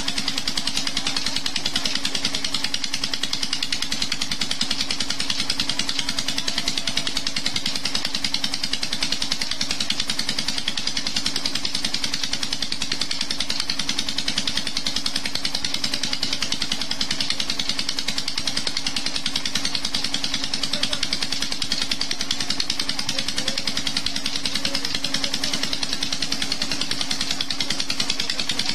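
Petter diesel engine running steadily at constant speed, fuelled on pure jatropha oil, with an even, fast firing beat and a steady hum.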